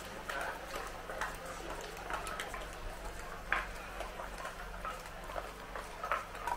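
Busy pedestrian shopping street: faint voices of passers-by, with scattered footsteps and light clicks and taps over a low steady hum.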